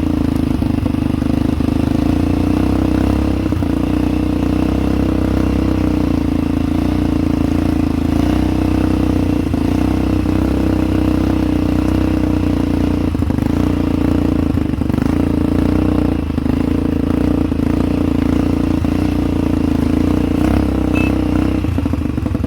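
ATV engine running at a steady speed during a ride, with occasional knocks and rattles from the rough trail.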